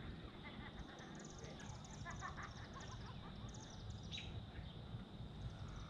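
Faint birdsong: quick high trills and a few short chirps, with a falling call about four seconds in.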